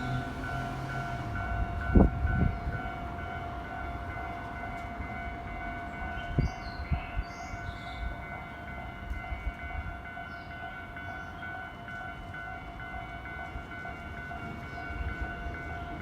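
Japanese level-crossing warning bell ringing steadily in a pulsing two-tone pattern while a train passes with a low rumble. A sharp knock comes about two seconds in, with smaller knocks a few seconds later.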